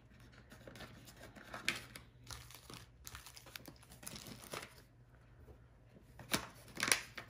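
Plastic bag and packaging crinkling and rustling as small craft tools are gathered and dropped back into the toolkit bag, with louder crinkles about two seconds in and again near the end.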